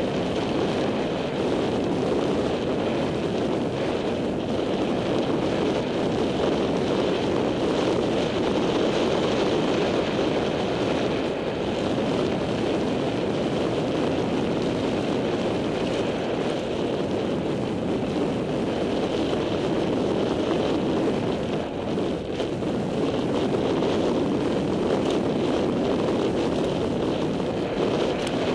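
Steady rushing noise of a mountain bike ride heard on a helmet camera: wind buffeting the microphone and knobby tyres rolling over a dirt and sand track.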